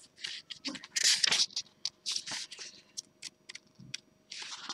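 Pages of a small paperback booklet being leafed through by hand: a string of quick, irregular paper rustles and flicks.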